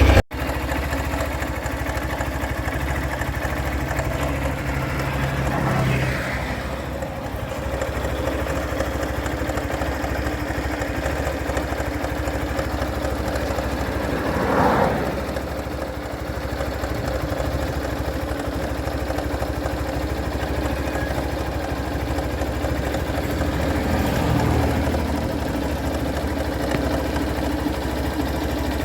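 Hero Thriller 160 cc motorcycle's single-cylinder engine idling, blipped briefly three times. It has a tick-tick-tick from inside the engine that comes in the first kilometre or two after starting and then stops by itself; the owner suspects the connector pipe.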